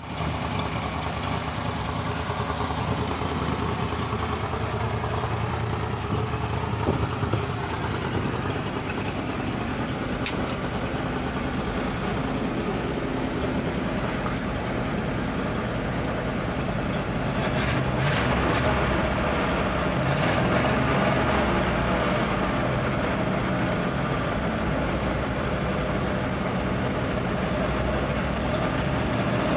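Engine of a 1948–50 Ford F-series pickup idling steadily, with a slight rise in level about halfway through.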